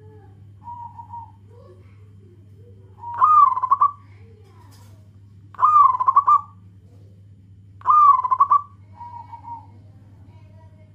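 Zebra dove (perkutut) singing: three loud cooing phrases about two and a half seconds apart, each a quick rising note that breaks into a rapid stuttering trill. Two fainter cooing phrases come near the start and after the third loud one.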